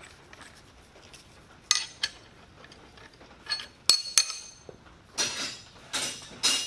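Steel machining clamp parts (studs, step blocks, strap clamps and nuts) clinking and ringing as they are set on a cast-iron rotary table, a handful of separate sharp clinks, followed near the end by a few short rasping noises.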